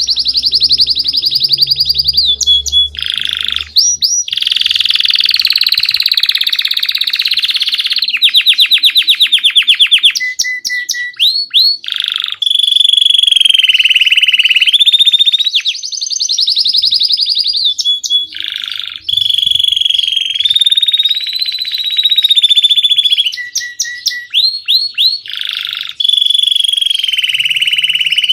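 A domestic canary of the Belgian type singing a long, continuous song. It alternates long, held, rolling trills with fast trains of repeated notes and quick rising slurs, all high-pitched, with only brief pauses between phrases.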